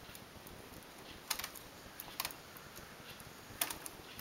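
Small clicks of a latch tool working loops off the metal needles of a knitting machine during a chain bind-off, in three quick double clicks about a second apart.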